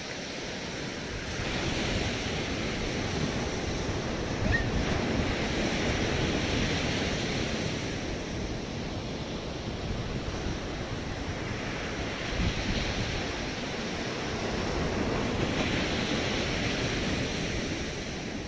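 Sea surf breaking on a sandy beach, the wash swelling and easing every few seconds, with wind buffeting the microphone.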